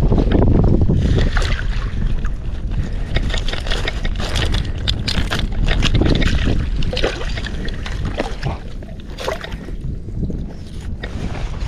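Wind buffeting the microphone in a steady low rumble, over water sloshing and splashing in short irregular bursts.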